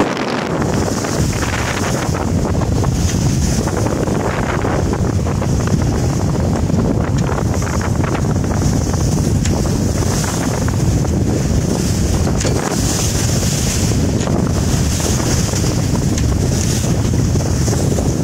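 Strong wind buffeting the microphone aboard a sailing yacht beating close-hauled, over a steady rush of waves and water along the hull; the hiss swells and eases every second or two with the gusts and seas.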